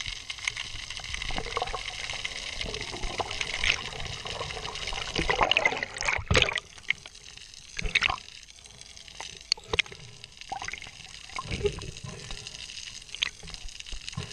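Underwater sound picked up through a camera housing as a freediver swims: water rushing and gurgling with scattered bubble pops and knocks, loudest around six seconds in.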